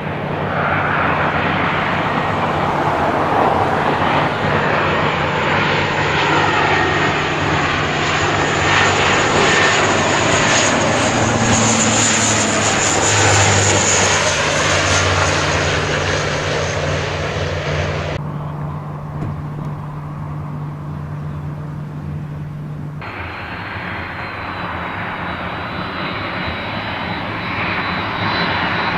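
Boeing C-17A Globemaster III's four turbofan jet engines running loud, a dense rushing noise with a high whine that swells near the middle. About two-thirds through, the upper part of the sound cuts off abruptly; several seconds later it returns with a steady high whine.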